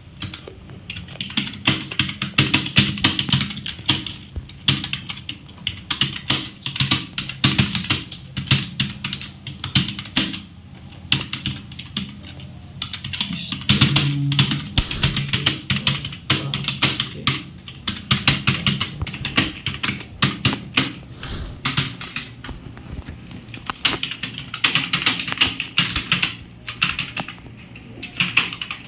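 Fast touch-typing on a computer keyboard: a dense, uneven stream of key clicks in quick spurts.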